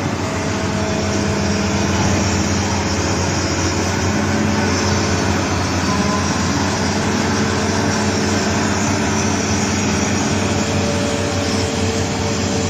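Heavy mining machinery running steadily: a continuous engine hum under a constant noisy wash, with no change in pace.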